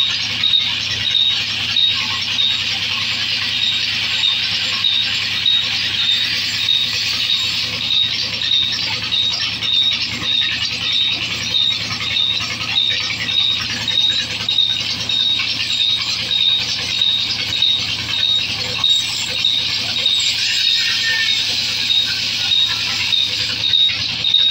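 Large wheeled band saw running and cutting through log sections. A high squeal pulses about twice a second over the hiss of the cut and a low steady hum.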